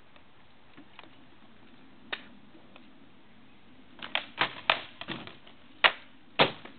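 Weapon blows in armoured sword-and-shield sparring, knocking on shields and armour: a single sharp strike about two seconds in, then a quick flurry of about a dozen strikes, the two loudest near the end.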